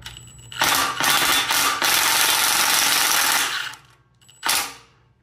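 Milwaukee impact driver hammering a self-tapping screw into an untapped hole in the stand's metal frame, cutting its own threads. It runs for about three seconds, then gives a brief second burst near the end.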